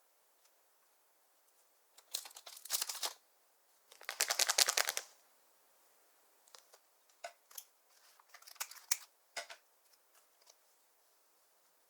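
Slime being squished and worked by hand, giving two bursts of rapid sticky crackling and popping, followed by a few scattered clicks and pops.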